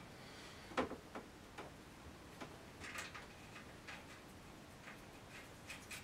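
Faint, irregular light clicks and ticks from hands working at the hub and rim of a bandsaw's upper wheel as it is turned slightly, the sharpest click about a second in.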